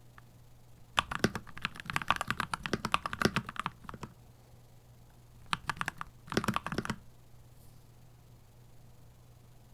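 Keychron C2 Pro 8K mechanical keyboard being typed on: a fast run of keystrokes starting about a second in and lasting about three seconds, then a few single strokes, a short burst, and a pause near the end.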